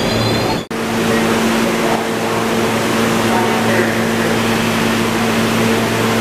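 R160 subway train running: a steady rumble of wheels on the rails with a steady hum. The sound cuts out for an instant under a second in.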